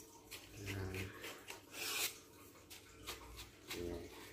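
Hands loosening the threaded locks and sliding out the sections of a telescopic landing-net handle: rubbing and a few light clicks, with a short rasping slide about two seconds in.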